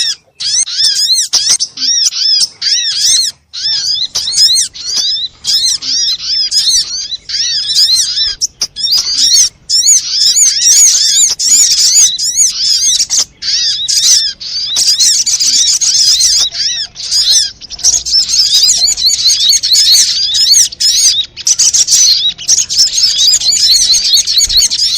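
Sogon (spiderhunter) calls played as a bird-lure track: a dense, busy stream of rapid high chirps and looping call notes that overlap continuously.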